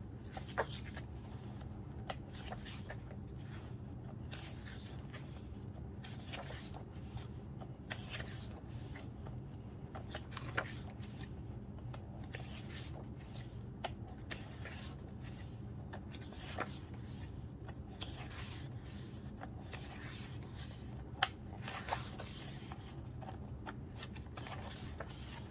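Glossy pages of a photo book being turned one after another, with paper rustling and a few sharper flicks, over a steady low background hum.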